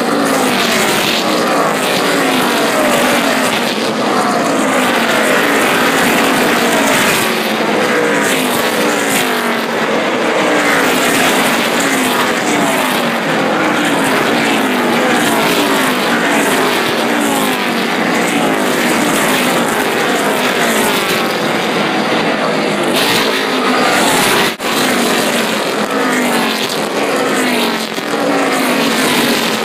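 A pack of NASCAR stock cars racing past close by, their V8 engines loud and continuous, each engine note dropping in pitch as a car goes by, one after another.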